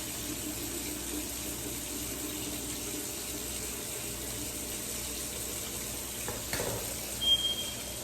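Kitchen faucet running into the sink in a steady rush of water. Near the end there is a brief knock or clatter, then a short high beep-like tone.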